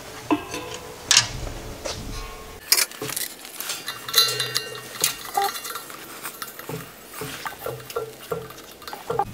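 Irregular metallic clinks and clanks as a wrench works a brass propane fitting on a 100-pound tank's valve, followed by the gas regulator being handled and fitted to the valve.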